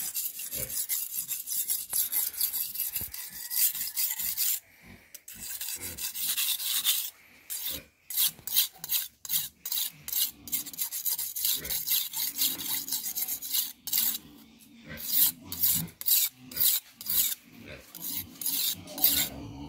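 Steel knife blade being sharpened on a flat whetstone: rapid back-and-forth scraping strokes, pausing briefly twice.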